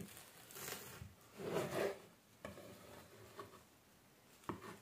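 Kitchen knife sawing through a toasted bread sandwich on a wooden cutting board: a few rasping, crunching strokes through the crust, then a sharp knock near the end.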